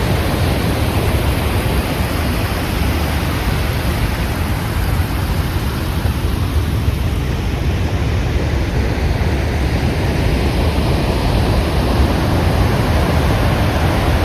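Waterfall pouring: a loud, steady rush of falling water, heaviest in the low end.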